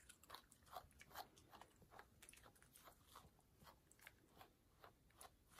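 Faint, quick scratching strokes of a Chris Christensen wire-pin slicker brush through a Bichon Frise's curly coat behind the ears, about two or three strokes a second.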